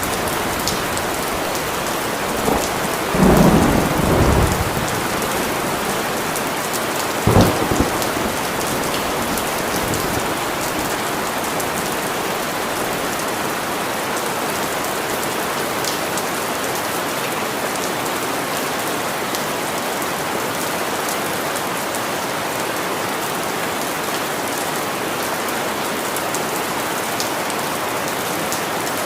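Steady rain falling on surfaces, with thunder: a low rumble about three seconds in and a shorter, sharper clap just after seven seconds, then rain alone.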